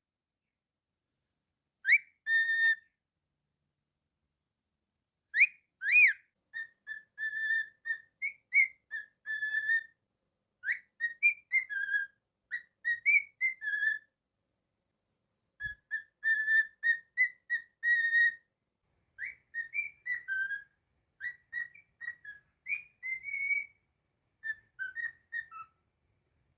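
Cockatiel whistling: a few quick rising sweeps, then a tune of short whistled notes in phrases with brief pauses between them.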